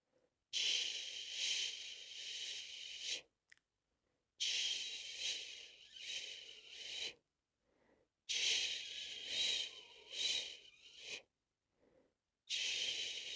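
A person shushing a baby to sleep: long 'shhh' sounds of about three seconds each, repeated four times with short breath pauses between them, each swelling and fading a few times.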